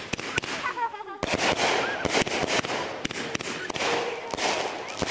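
500-gram, 25-shot consumer firework cake firing: a quick run of sharp bangs from shots launching and bursting. A dense hiss fills in under the bangs from about a second in.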